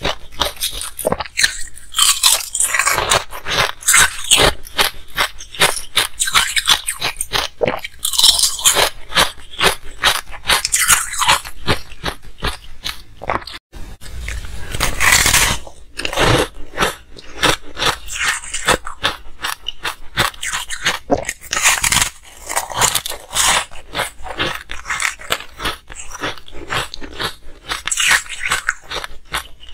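Ice being bitten and chewed close to the microphone: loud, rapid, irregular crunching throughout, with a brief gap about fourteen seconds in.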